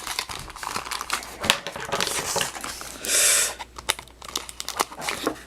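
Plastic toy packaging crinkling and crackling as it is handled and opened, with many small irregular clicks. About three seconds in there is a louder rustle lasting about half a second.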